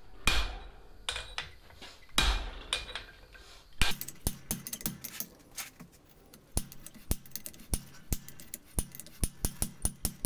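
Brass hammer striking over a hot cut to shear the corners off a red-hot leaf-spring steel blank on the anvil. It begins with a few heavy, dull blows, then from about four seconds in comes a quick, uneven run of sharp metal strikes with a light ringing note.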